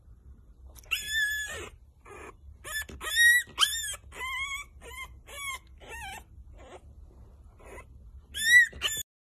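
Newborn French bulldog puppy crying: a string of short, high-pitched squeals and whines, each rising and falling in pitch, the loudest near the end.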